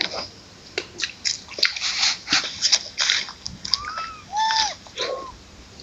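Macaque calls: three short arched coos in a row about four to five seconds in, among scattered short chirps and clicks.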